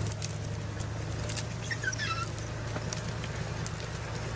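Vehicle engine running steadily with a low, even hum, with scattered light knocks and rattles over it.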